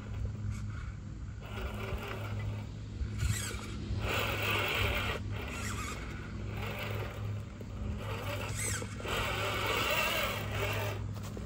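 1/6-scale RC Willys Jeep crawler driving over concrete and dry leaves: its electric motor and geared drivetrain whine in bursts of throttle, with the tyres scraping as it climbs.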